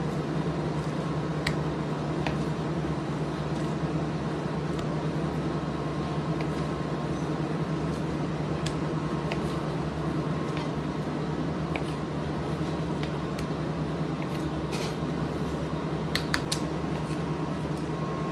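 Steady hum of a kitchen fan, with faint scattered clicks of a large chef's knife cutting through fish steaks onto a plastic cutting board; a few sharper clicks come about sixteen seconds in.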